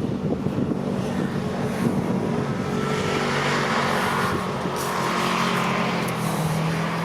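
A motor running steadily: a low, even hum, with a rushing noise that swells in the middle and a pitch that drops slightly near the end.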